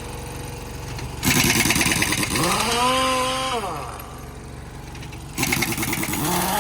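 A motor with a rattling edge revs up and falls back. It starts suddenly about a second in and winds down after about three seconds, then starts suddenly again and rises near the end.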